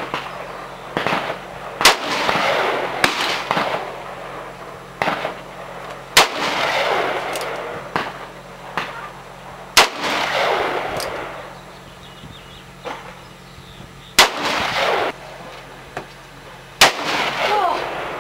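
Revolver fired one shot at a time, about every three to four seconds, each sharp crack followed by a long echo that rolls off. Fainter shots crack in between.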